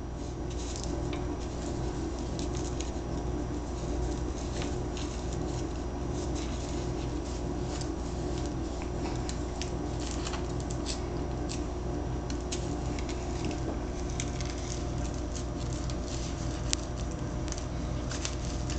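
A cat licking, biting and chewing a catnip-filled fabric snake toy: irregular small wet clicks and smacks over a steady low hum.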